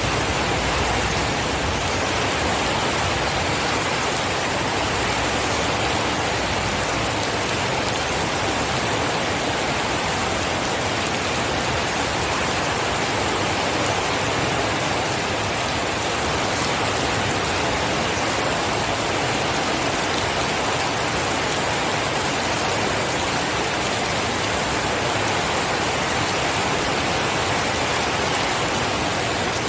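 Steady heavy rain falling, a dense even hiss of drops with no thunder or other events.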